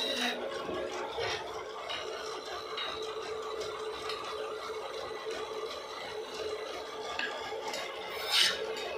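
A hand-held turning chisel cutting a wooden handle on a lathe: a steady rasping scrape of the tool on the spinning wood over a steady hum, with one brief louder burst near the end.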